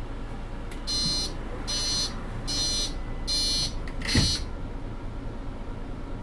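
Mercedes-Benz NG 265 city bus's door-closing warning buzzer sounding four high beeps about 0.8 s apart, followed a moment later by a single thump.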